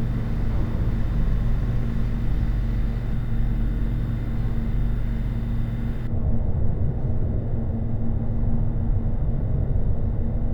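Designed sci-fi ambience for an empty spaceship or starbase: a steady, strong low hum run through a phaser. About six seconds in, the hiss above it cuts off suddenly and a rougher low rumble carries on.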